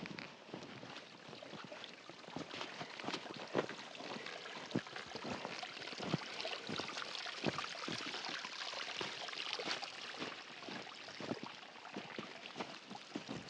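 Footsteps crunching irregularly in fresh snow, over a steady trickle of meltwater running down a rock slab that grows louder around the middle.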